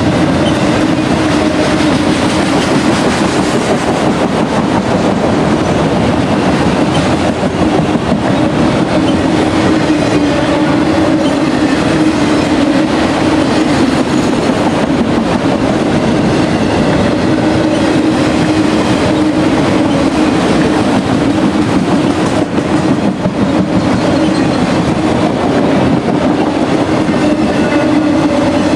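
CSX freight train Q217 rolling past, a steady loud rumble of steel wheels on rail. A low hum within it swells and fades several times.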